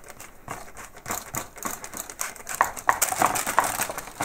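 Metal spoon pressing and scraping crumbly cookie dough on baking paper: a run of soft taps, scrapes and paper crinkles, sparse at first and busier and louder in the second half.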